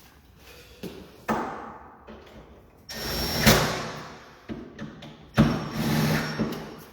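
Door-lock hardware being fitted: metal clunks and knocks, with a power driver running in short spells. The loudest sounds are a sharp hit about halfway through and another a couple of seconds later, followed by about a second of steady whirring.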